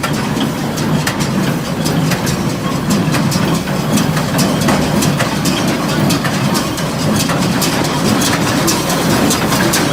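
International Harvester 430 square baler running on test, driven by a tractor engine that runs steadily, with rapid clicking and clattering from the baler's mechanism.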